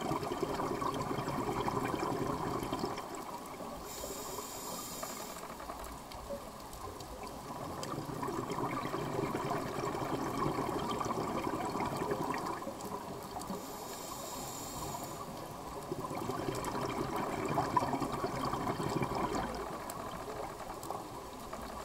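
Scuba diver breathing through a regulator, heard underwater: three long bursts of bubbling, gurgling exhaled air, with a short hiss of inhalation between them twice.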